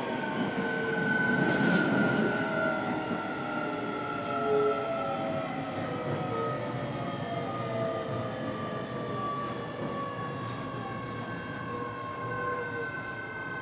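Keio 7000 series electric train running, heard from aboard the motor car: several whining tones from the traction motors and their control gear fall slowly in pitch as the train slows, over the rumble of the wheels on the rails.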